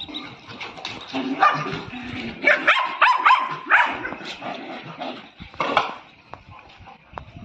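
Dogs barking and yipping as they play together, in short bursts that come thickest and loudest a few seconds in, with one more bark near the end.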